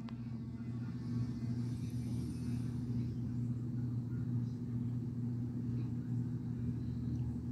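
A steady low motor hum, unchanging in pitch and level.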